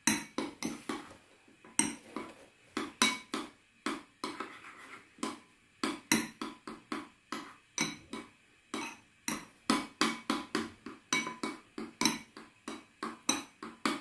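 A metal spoon scraping and knocking against a measuring cup and a bowl while stirring and scooping a thick paste. It makes a long run of quick, uneven clicks and taps, about three a second.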